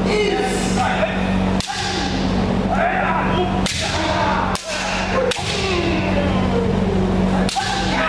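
Kendo practice: bamboo shinai swords cracking onto armour, with several sharp strikes standing out, and feet stamping on the wooden floor, over overlapping kiai shouts from many fencers.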